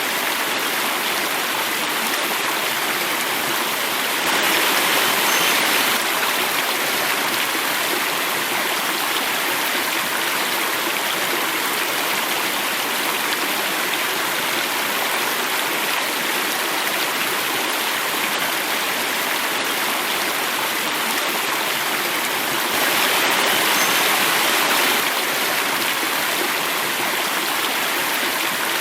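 Water running and falling over a small cascade in a stream, a steady rushing flow. It swells a little louder twice, for a second or two each time.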